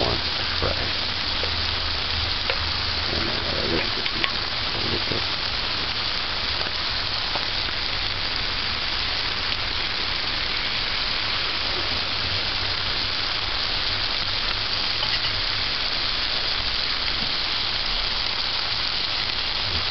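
Salted codfish pieces frying in a little oil in a metal pot, a steady sizzle.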